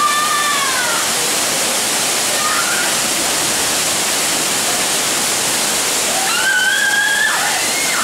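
Waterfall pouring into a rock pool, a steady rush of falling water. Voices call out over it about a second in and again near the end.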